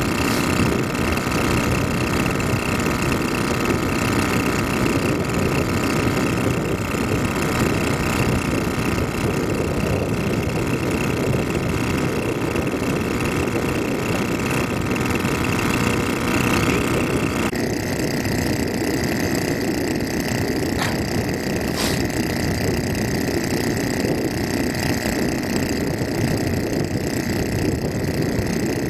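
Riding rice transplanter's engine running steadily as the machine plants seedlings. The sound shifts abruptly about two-thirds through, and two short clicks come shortly after.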